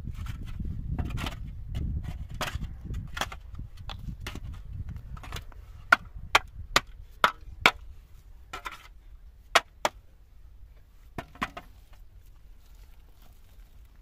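Metal shovel scraping through dirt and grit for several seconds, then a run of sharp knocks as the blade strikes the stony ground, with a few more knocks and then quiet work.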